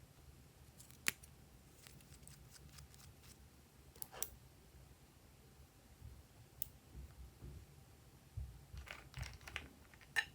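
Glossy slime being worked by hand, giving a few scattered sharp clicks and small pops, with a denser run of them near the end.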